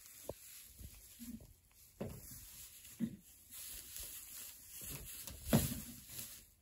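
Pygmy goats fighting: a scuffle of irregular thuds and knocks, the loudest about five and a half seconds in.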